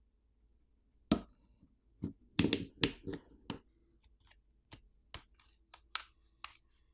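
Plastic catches of a phone's plastic back housing snapping free as a plastic pry pick is run along its edge: a string of sharp plastic clicks, the loudest about a second in and a quick cluster a little later, then sparser, fainter clicks.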